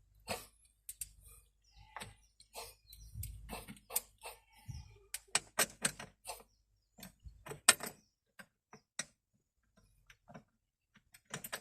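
Irregular sharp clicks and metal clinks of hand work at the excavator's battery connections, the loudest about three quarters of the way in, growing sparser toward the end.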